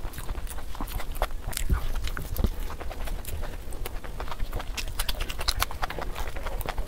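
Close-miked eating sounds: wet chewing and lip smacking with many sharp mouth clicks at an uneven pace, as egg curry and puri are eaten by hand.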